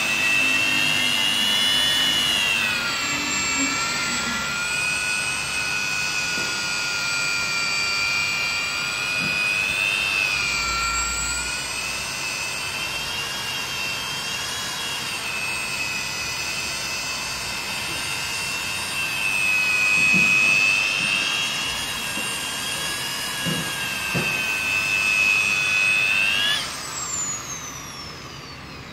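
Hand-held electric polisher spinning a felt pad against glass. Its motor whines steadily and dips in pitch now and then. Near the end it is switched off and winds down with a falling whine.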